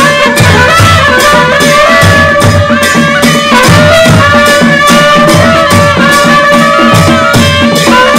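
Nepali panche baja ensemble playing: reed and horn notes held long, with a wavering melody, over a steady beat of damaha and dholak drums and jhyali cymbals.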